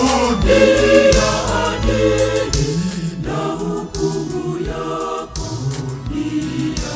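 Mixed choir of men's and women's voices singing a Swahili hymn in harmony, over an instrumental backing with a steady beat and bass.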